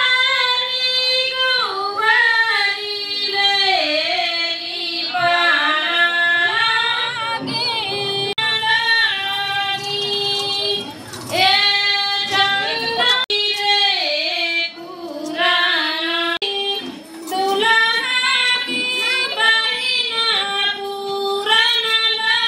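A high-pitched voice singing a melodic song in long held notes with gliding, ornamented turns.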